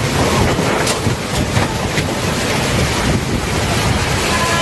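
Heavy rain in strong gusting wind, the wind buffeting the microphone into a steady loud rushing noise, with a few sharp taps about one to two seconds in.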